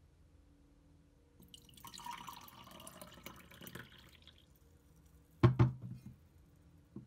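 Water poured into a glass tumbler, splashing and filling for about three seconds, followed by two hard knocks a second later and a small knock near the end.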